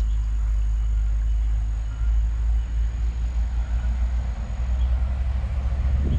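A loud, low, steady rumble that wavers a little in strength, with faint thin high chirps now and then.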